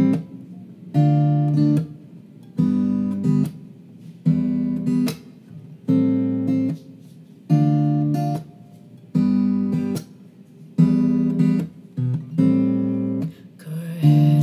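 Acoustic guitar strumming a slow chord pattern, one chord about every second and a half. Each chord rings for about a second, then is cut short, nine times in a row.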